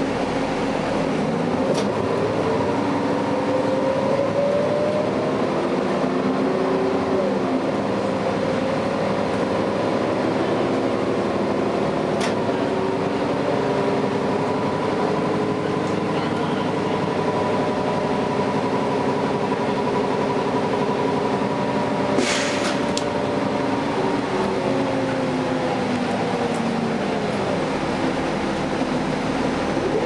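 Cabin sound of a 2011 Gillig Advantage transit bus under way, its Cummins ISL9 inline-six diesel and Allison B400R automatic transmission whining. The pitch climbs through upshifts as the bus pulls away, holds steady while cruising, then falls as it slows near the end. A few sharp rattles from the body and fittings, the biggest cluster about two-thirds through.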